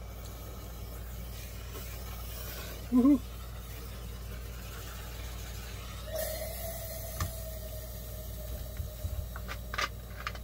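Russian military survival match burning after being struck, a faint steady hiss; a short whooping shout about three seconds in.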